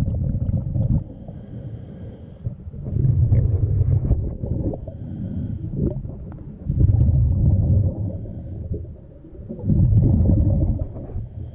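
Underwater breathing of the diver holding the camera, heard through the water: low rumbling surges, about every three to four seconds, four in all.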